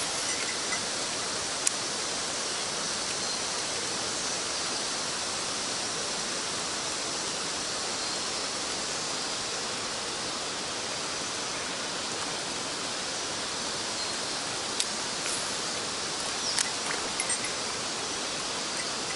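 Mountain stream water rushing in a steady hiss. A few sharp clicks stand out above it, one a couple of seconds in and a cluster near the end.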